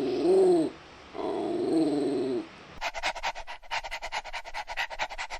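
A puppy gives two drawn-out, wavering whining cries, then pants fast and steadily from about halfway through.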